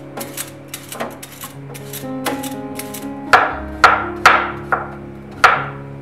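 Chef's knife chopping cucumber on a wooden cutting board: a few faint clicks at first, then five sharp knocks of the blade on the board in the second half, over soft background music.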